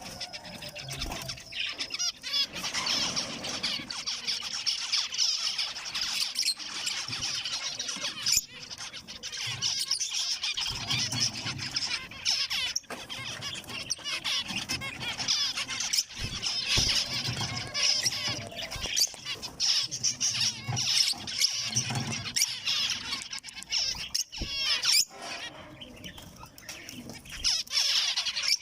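Zebra finches calling and chattering, many short calls overlapping without pause, with occasional sharp clicks.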